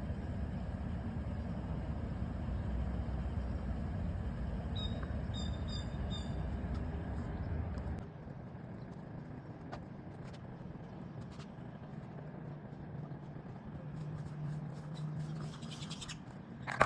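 Outdoor background with a low steady rumble that drops away about eight seconds in, a few short high chirps about five seconds in, and a sharp click at the very end.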